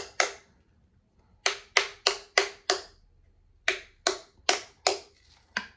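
A knife tapping on a jar lid to break its vacuum seal: about a dozen sharp, ringing taps in three quick runs, with a last single tap near the end.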